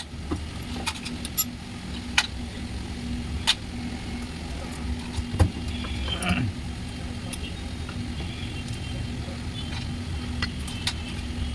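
Steady low mechanical hum, with scattered sharp metallic clicks and taps and a brief scrape about halfway through, as parts of a car alternator are handled and worked on by hand.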